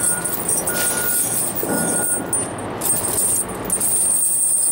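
Steel square-link tire chains clinking and rattling as they are thrown over a truck's drive tire and pulled into place by hand, with a heavier clatter about two seconds in.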